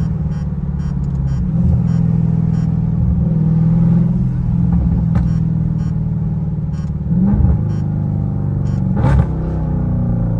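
Dodge Charger Scat Pack's 392 HEMI V8 with catless mid-pipes cruising, a steady deep exhaust drone heard from inside the cabin. The pitch rises briefly about seven seconds in and again about nine seconds in as the engine is given throttle.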